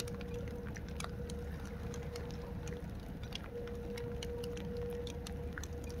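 Rain pattering: scattered drops ticking irregularly over a steady wash of noise. A steady tone runs underneath and breaks off briefly near the middle.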